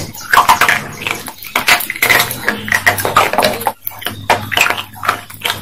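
Close-up crunching and chewing of black slate-pencil sticks: bursts of sharp, crisp crunches, several a second, as the sticks are bitten and ground between the teeth.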